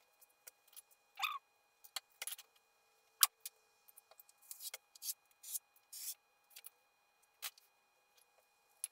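Woven fiberglass cloth rustling and rubbing in scattered short scrapes as it is folded and smoothed flat by hand on a board, with one sharp click a little after three seconds in.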